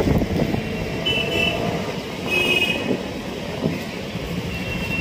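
Outdoor traffic ambience: a steady low rumble of vehicles moving around an open car park, with short high-pitched tones heard about a second in, in the middle and near the end.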